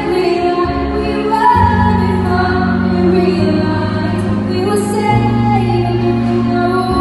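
A young woman singing into a microphone, accompanied by sustained chords on an electronic keyboard that change roughly every two seconds.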